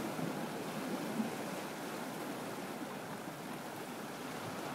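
Steady wash of ocean surf breaking on the shore.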